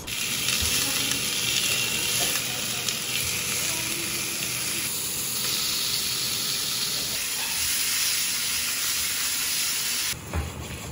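Beef steaks sizzling in a hot frying pan, a steady hissing sizzle that cuts off near the end.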